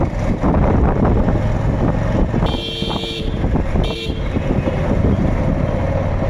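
Road traffic and low wind rumble heard while riding on an open two-wheeler, with a vehicle horn honking twice: about half a second long at around two and a half seconds in, then a short toot near four seconds.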